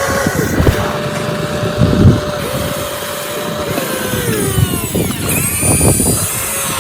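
Small electric motor of a radio-controlled excavator whining, its pitch stepping and dropping as the machine works, with scattered knocks and scrapes.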